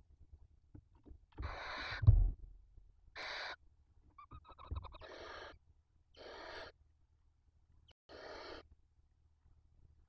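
Barn owl chicks giving hissing, snore-like begging calls while being fed: five rasping bursts of about half a second each. A quick run of short, high twittering notes comes about four seconds in, and a loud thump about two seconds in.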